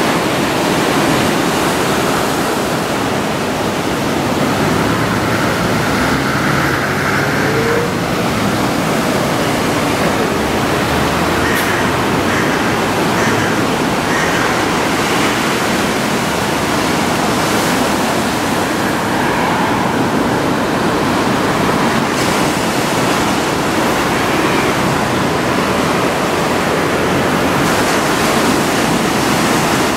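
Heavy surf from a typhoon swell breaking on the shore: a loud, steady wash of noise without let-up.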